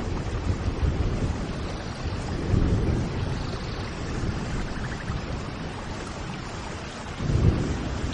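Steady rain with low rumbles of thunder swelling about two and a half seconds in and again near the end, and a few faint bird chirps.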